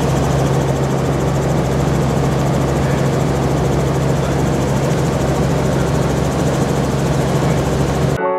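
Steady, loud drone of a helicopter's engine and rotors heard from inside the cabin, cutting off abruptly near the end.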